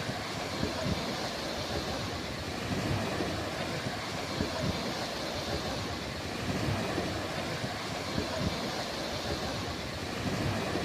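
Sea surf washing on a beach: a steady rush of breaking water with irregular low rumbles.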